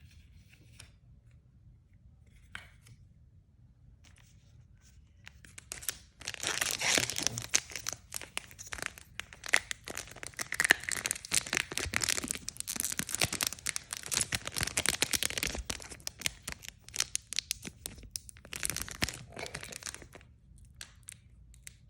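Plastic wrapper of a trading-card booster pack being torn open and crinkled by hand, starting about six seconds in and running in a dense crackle for about ten seconds, with a shorter burst of crinkling near the end.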